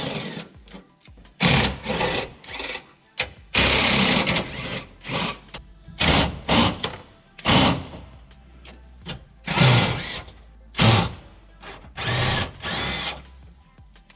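Handheld cordless power tool spinning out bumper bolts in a series of short bursts, each about half a second to a second long, with pauses between. The bolts hold the block-off plates at the tow-hook openings.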